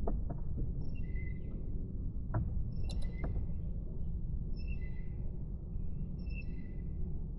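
A bird calling: a short pitched phrase repeated four times, about every second and a half, over a steady low rumble, with a few sharp clicks in the first half.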